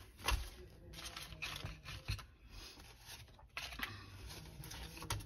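Paper banknotes rustling and flicking as a stack of bills is handled and sorted by hand, in a few short separate bursts with soft taps.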